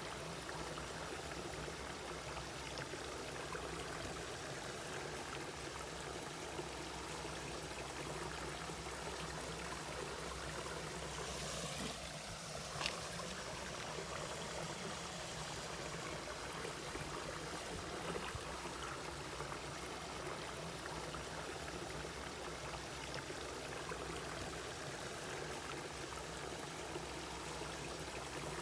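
Mountain valley stream flowing and trickling steadily over rocks. About halfway through there is a brief louder moment ending in one sharp click.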